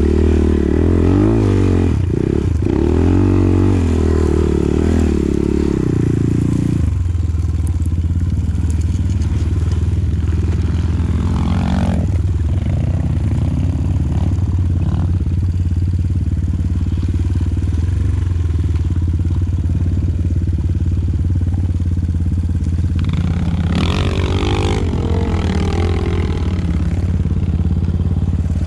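Enduro dirt bike engines running: revved hard with pitch changing for the first seven seconds or so, then settling to a steadier, lower note, with another rise in revs a few seconds before the end.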